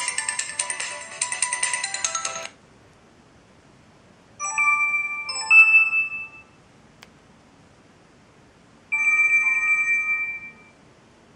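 Samsung SGH-i560 ringtones previewed one after another through the phone's loudspeaker. A busy polyphonic melody cuts off about two and a half seconds in. After a pause comes a short chime of a few notes, then a faint click, then another short chime near the end.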